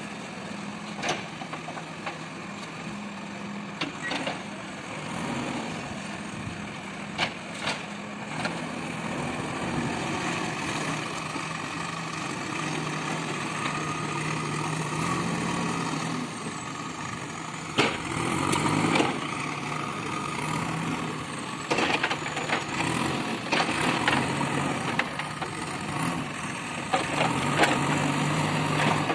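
JCB 3DX backhoe loader's diesel engine running steadily as the loader works, with sharp knocks of logs striking the bucket and each other every few seconds.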